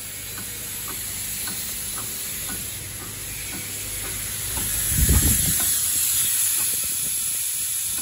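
Steady high hiss of compressed air around a pneumatic corner-connector screw assembly machine, with faint scattered clicks and a dull low thump about five seconds in.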